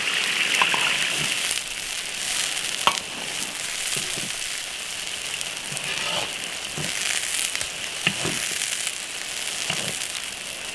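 Silkworm pupae deep-frying in a wok of hot oil: a steady sizzle with a few sharp clicks.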